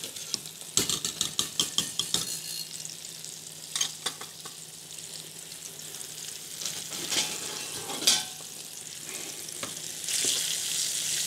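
A wire whisk rattles quickly against a pot for about a second and a half as soup is stirred, with a few single utensil knocks later. Under it, sardines sizzle steadily as they fry in oil, and the sizzle gets louder near the end as the fish are turned with tongs.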